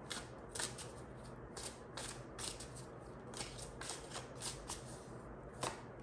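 Tarot deck being shuffled by hand: a soft, irregular run of quick card flicks.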